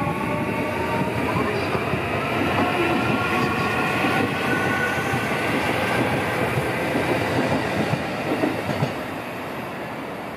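JR Central 315 series electric multiple unit accelerating away from the platform. Its traction motor whine rises in pitch and fades about a second and a half in, leaving wheel rumble and rail-joint clatter as the cars roll past, with a few sharp knocks near the end before the sound drops away.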